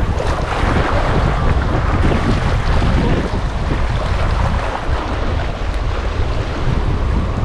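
Strong wind buffeting the microphone: a steady, heavy rush of noise, strongest in the low end.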